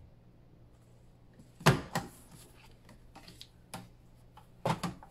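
The punch of a We R Memory Keepers 1-2-3 Punch Board is pressed down through cardstock. The loudest is a sharp snapping click about a second and a half in, with smaller clicks and knocks of the board and paper after it.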